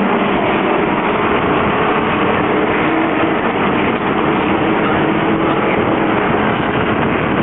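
A pack of NASCAR Truck Series race trucks running at speed, their V8 engines making a loud, steady, continuous roar of overlapping engine notes.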